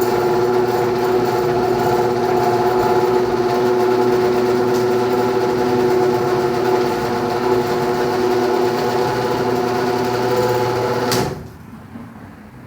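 Genie garage door opener motor running under strain with a loud, steady hum, then cutting off suddenly near the end. The door is not opening and closing properly on frozen, stiff hinges, and the owner is pretty sure the opener's leaking capacitor is the culprit.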